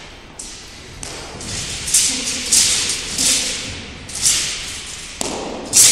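Wushu broadsword (dao) form being performed on a competition carpet: after a quiet second, a run of about five sharp swishes and thuds from the blade cutting the air and the feet landing, the loudest near the end. Faint voices echo in the large hall.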